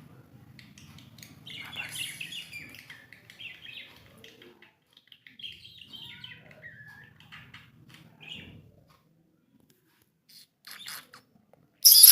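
Budgerigars chirping and warbling in quick bursts of short twittering notes with little gliding calls. Near the end come a few sharp crunchy clicks, the last one the loudest sound.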